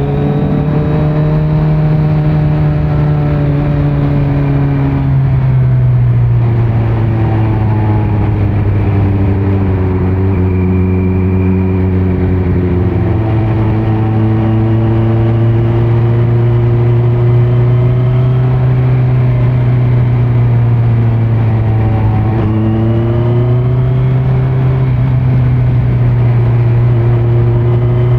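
2018 Kawasaki Z900's 948 cc inline-four running through a Leo Vince muffler with no dB killer, under way at fairly steady revs with slow rises and falls. The pitch drops about five seconds in and climbs again about three quarters of the way through.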